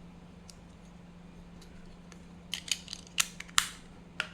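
A door sensor being handled while its battery switch is turned on: a quick run of about six small, sharp clicks and snaps starting about two and a half seconds in, over a faint steady hum.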